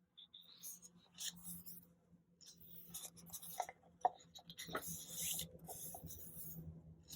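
Paper rustling and sliding in short, uneven bursts as the pages of a softcover album photobook are handled and turned, with a few soft ticks near the middle.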